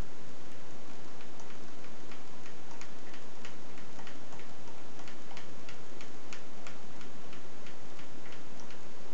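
Regular light ticking, about three ticks a second, over a steady hiss.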